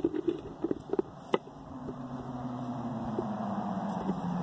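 A road vehicle approaching, its engine and tyre noise building over the last couple of seconds with the engine pitch sinking slightly as it nears. A few sharp knocks in the first second and a half.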